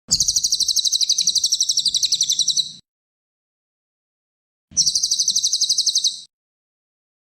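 A cililin songbird's fast, high-pitched trill of rapidly repeated notes, about ten a second, in two bursts: one of about two and a half seconds, then after a pause a shorter one of about a second and a half. Each burst starts and stops abruptly.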